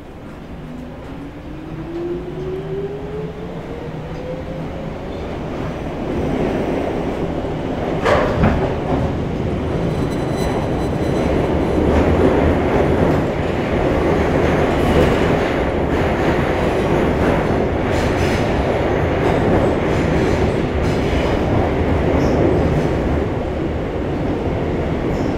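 Old resistance-controlled Seoul Metro 2000-series subway car heard from inside as it pulls away: a motor whine rises in pitch over the first five seconds while the running noise grows louder. It then settles into a steady rumble of wheels on rail with scattered clacks and one sharp bang about eight seconds in.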